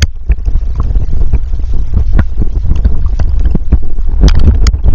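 Water heard through a submerged camcorder: a loud, muffled low rumble with scattered clicks and knocks, the sharpest few about four seconds in.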